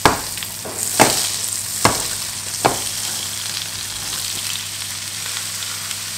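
Butter and bacon grease sizzling steadily in a frying pan as grated potato for hash browns is tipped in, with four sharp knocks in the first three seconds.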